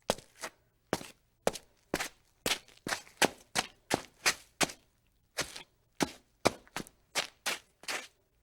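Footsteps walking at a steady pace, about two sharp, crisp steps a second, many of them landing as a quick double strike of heel then toe.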